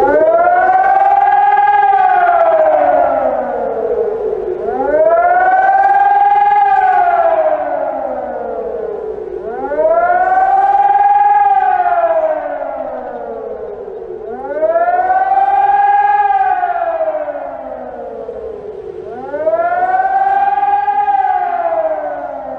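Civil defense siren sounding a public warning alarm: a wailing tone that rises quickly and falls slowly, about five times, once every five seconds or so, getting louder at each rise.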